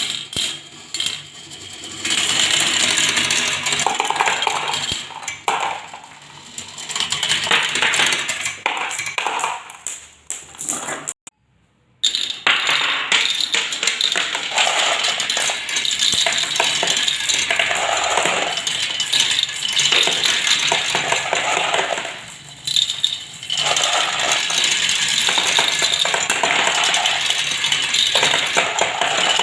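Marbles rolling and clattering down a marble run tower, a dense stream of rapid clicks and clacks that rises and falls, broken by a short silence about eleven seconds in.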